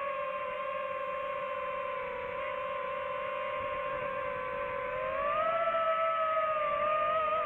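DJI FPV drone's motors and propellers whining in flight with a steady pitched hum. About five seconds in the pitch rises as the throttle goes up, then wavers.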